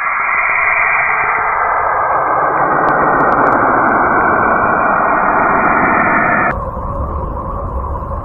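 Space 'planet sound' audio of the kind made by turning spacecraft radio and plasma-wave data into sound: a steady, static-like hiss. About six and a half seconds in it switches abruptly to a thinner hiss over a low rumble, as the next clip begins.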